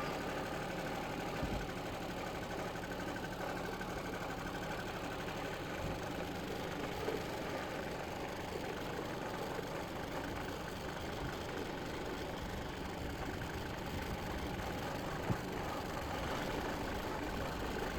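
Small engine of a Harbor Freight towable backhoe running steadily, with a short knock late on.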